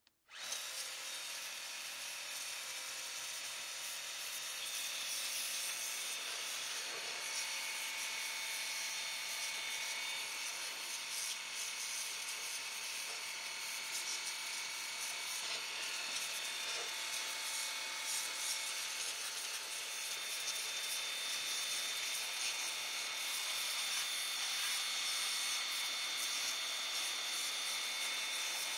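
WORX Hydroshot 40-volt cordless pressure washer triggered on, its electric pump whining steadily under a dense hiss of the water jet spraying.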